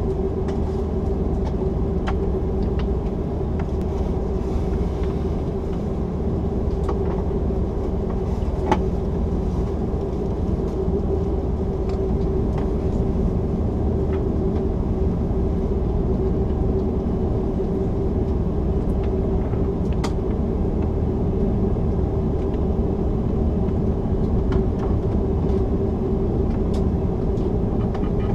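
Cabin noise inside an Airbus A330-300 standing still with its engines at idle before takeoff: a steady low rumble with a constant mid-pitched hum, and a few faint clicks.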